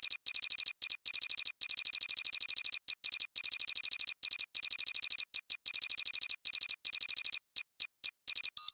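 Electronic ringtone-like trill: a high, rapidly pulsing tone in runs with short gaps, breaking into separate short beeps near the end.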